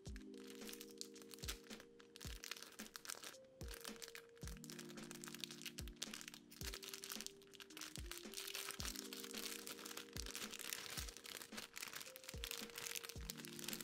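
Lo-fi background music with chords and a beat, over the crinkling of a clear plastic bag being handled and opened, the crinkling heaviest in the second half.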